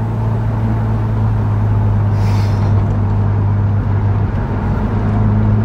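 Mazda FD RX-7's street-ported rotary engine droning through an RE Amemiya cat-back exhaust at a steady engine speed, heard from inside the cabin while cruising. A brief hiss comes in about two seconds in.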